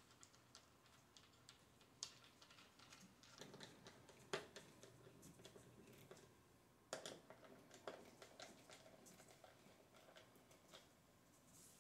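Faint, irregular clicks and taps of metal hardware being fitted and hand-tightened on the underside of a Roc-N-Soc drum throne seat, with a sharper knock about four seconds in and a small cluster of knocks around seven seconds.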